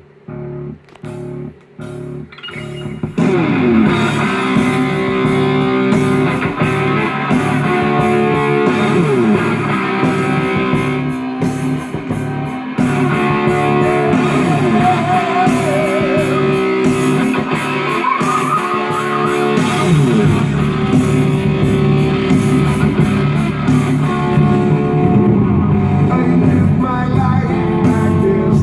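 Guitar-led rock song played over FM radio through a vintage Sony STR-VX250 stereo receiver and its speakers, sounding clear with no crackle. It opens with short, spaced guitar chords, and the full band comes in about three seconds in.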